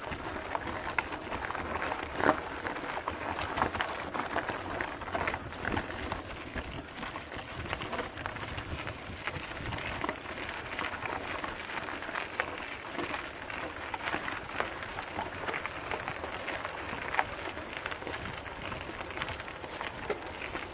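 Irregular crunching, clicks and knocks of movement over a rough, rocky mountain trail, with no rhythm and a few louder knocks.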